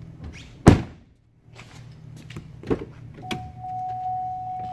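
A Chevrolet Suburban's door shuts with a heavy thump, followed by a lighter knock and a click; then a steady high tone sets in and holds.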